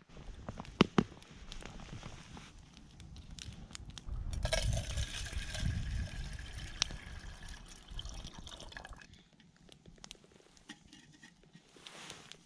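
Water poured from a bottle into a small metal kettle, a steady pour lasting about four and a half seconds. Short crackles from the campfire come and go around it, with two sharp clicks about a second in.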